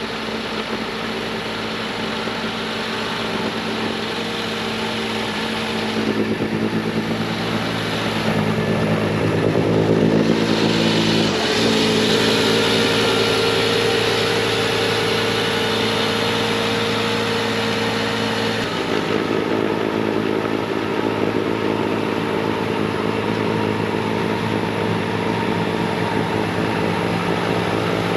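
Bobcat T66 track loader's diesel engine running steadily at full throttle, driving a snowblower attachment through wet snow. About ten seconds in the engine note shifts under load and a louder hiss joins it, easing off again a little past the middle.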